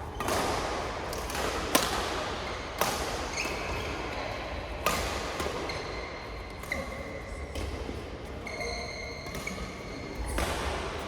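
Badminton rally: sharp racket hits on the shuttlecock, irregularly spaced a second or two apart, with the loudest two close together near the start. Short high squeaks from shoes on the court floor sound between the hits.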